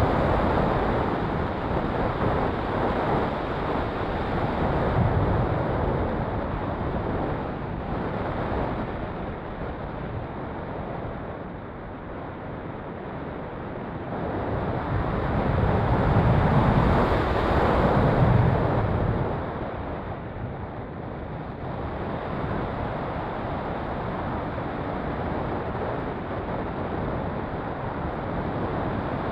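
Wind rushing over an ASW28 RC glider's onboard action camera in flight. It is a steady rush of air with no motor tone; it swells louder about fifteen seconds in and eases back a few seconds later.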